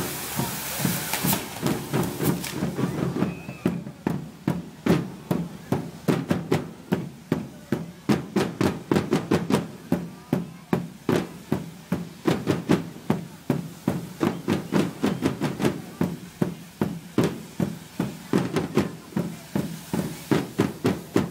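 Sparkler fireworks on a correfoc fire-dragon hiss at the start and again near the end. Under them is a steady drum beat of about three strokes a second.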